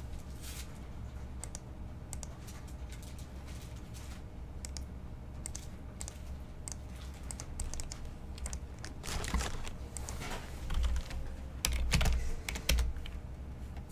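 Typing on a computer keyboard: scattered key clicks at first, then quicker, louder runs of typing in the last five seconds.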